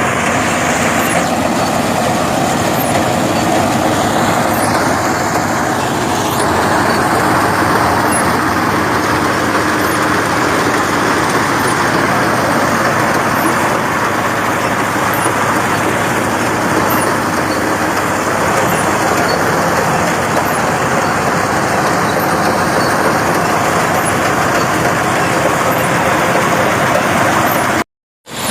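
Mini combine harvester running steadily at work, with continuous loud engine and machinery noise. It cuts out for a moment just before the end.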